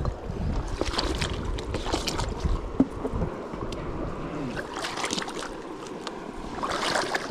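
Water splashing and sloshing in irregular bursts, with wind rumbling on the microphone during the first few seconds.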